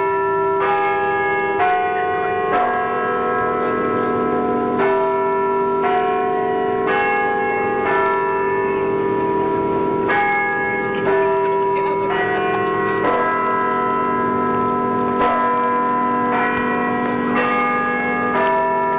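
Tuned bells playing a slow melody, about one struck note a second, each note ringing on under the next.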